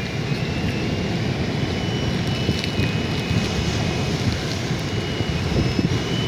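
Steady low rumble of wind buffeting the microphone, with a faint thin high tone running through it.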